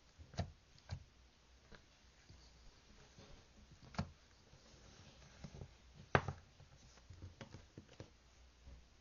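Scattered light clicks and knocks in a small quiet room, a few louder ones standing out, the loudest just after six seconds in.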